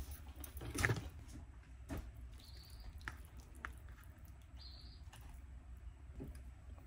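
Soft food-prep handling: a plastic fork scraping and tapping as tuna mix is scooped from a paper bowl and spread onto bread on a wooden board. A tap about a second in is the loudest sound, and there are two brief high squeaks later on.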